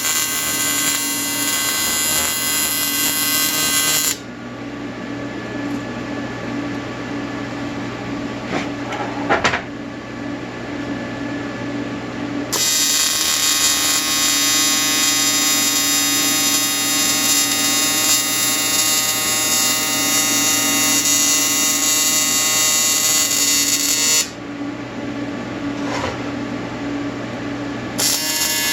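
TIG welding arc buzzing steadily in three runs, cutting out about four seconds in and again near the end. In the pauses only the welding machine's lower steady hum remains.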